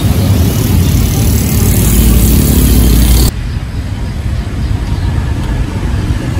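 Street traffic: a motor vehicle's engine rumbles close by with a rising drone for about three seconds, then cuts off suddenly to a lighter, steady traffic hum.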